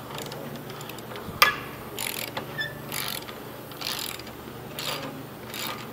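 Hand ratchet wrench worked in short strokes, about one rattling stroke a second, tightening a bolt on a hose clamp along an excavator's boom. A single sharp click comes about one and a half seconds in.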